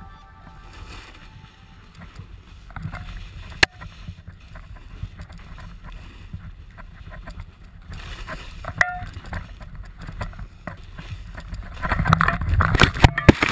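Snowboard riding through deep powder, heard on a pole-mounted GoPro: a steady rush of snow and air, with a couple of sharp knocks on the camera or pole. Near the end it turns much louder and jumbled as the camera spins in a tumble into the snow.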